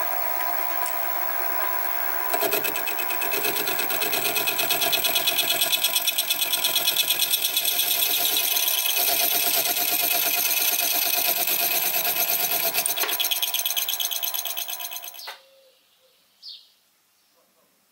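Slitting saw on a Sieg SX2P mini mill spinning, then from about two seconds in cutting into a metal workpiece with light cuts, the teeth giving a rapid pulsing chatter over the motor's run. The sound stops abruptly about fifteen seconds in.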